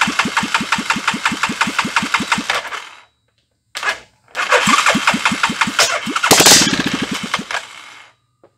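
Hisun 500 UTV single-cylinder engine on a bench test stand catching and running in quick regular beats, about seven a second; it dies out about three seconds in, fires again a second or so later with a louder surge about six and a half seconds in, and stops near the end.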